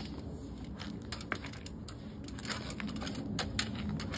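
Irregular sharp clicks and ticks of needle-nose pliers working the plastic clips of a BMW X5 kidney grille, the tabs clicking as they are flexed free to separate the black inner piece from the chrome surround.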